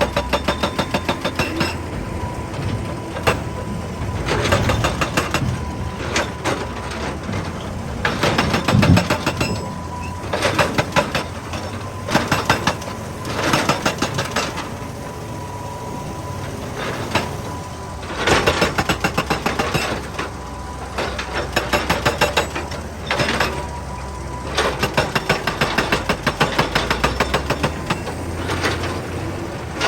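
Excavator-mounted hydraulic breaker hammering rock in bursts of rapid blows, each a second or two long, over the steady running of the excavator's diesel engine.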